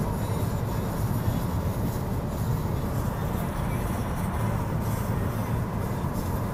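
Steady low road-and-engine rumble of a moving car, heard from inside the cabin.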